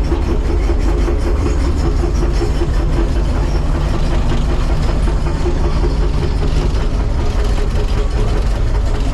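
Large tracked excavator's diesel engine running steadily and loud as the machine travels slowly on its tracks along the road.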